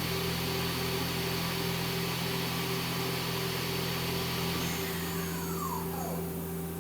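Spindle of a 2011 Mazak Quick Turn Nexus 250-II CNC lathe running steadily at 2,500 RPM with a hum and a whine. About five seconds in it starts winding down, with a falling whine as it slows.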